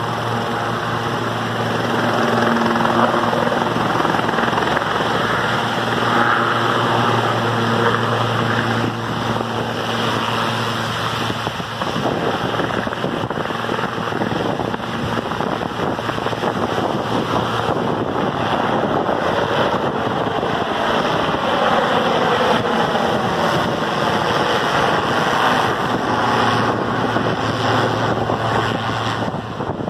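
Sikorsky S-76 helicopter's turbine engines and rotor running at take-off power as it lifts off and climbs away overhead: a loud, steady turbine whine over rotor thrum. Past the middle the pitch glides down as it passes over and away.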